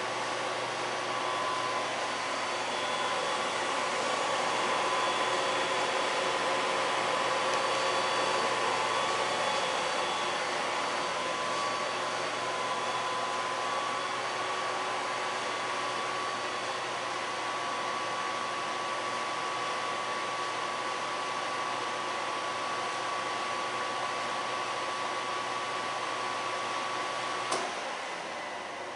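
BEcom BE-SRB-250 spiral mixer running, its motors and belt drives giving a steady whine with a few held tones. Near the end it stops with a click and the sound dies away.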